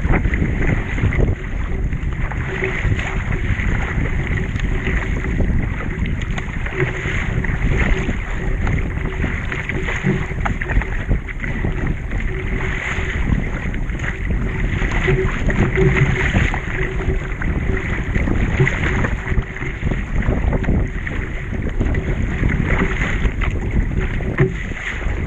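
Wind buffeting the microphone over water splashing and rushing along a surf ski's hull as it is paddled at sea. The splashing swells about every two seconds with the paddle strokes.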